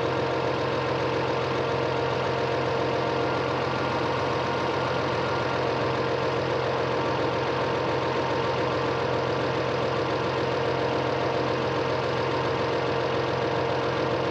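A farm machine's engine idling steadily, a constant drone that holds the same speed throughout.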